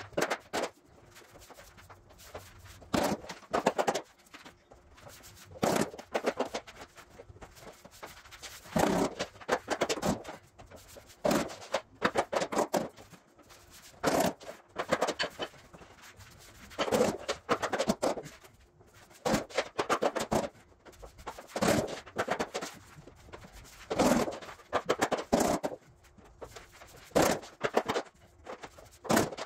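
Luxury vinyl planks being laid and fitted together: irregular clusters of knocks, taps and clatter every second or two, with short quiet gaps between.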